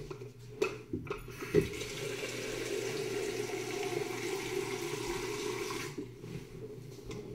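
A few light knocks, then a kitchen tap runs into a cup for about five seconds and shuts off.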